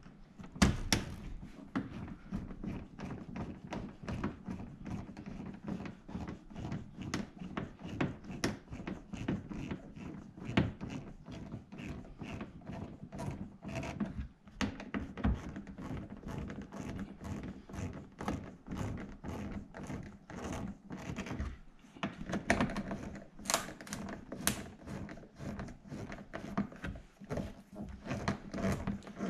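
Front splitter and wheel air dam on a C7 Corvette being handled and pressed into place by hand: a dense, irregular run of knocks, taps and clicks.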